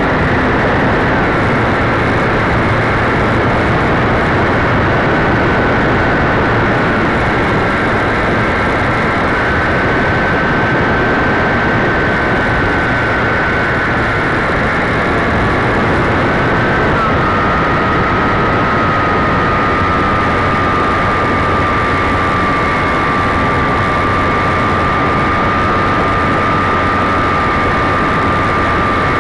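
Model airplane's motor and propeller heard through its onboard camera in flight: a thin steady whine over a loud, constant rush, the whine shifting in pitch three times.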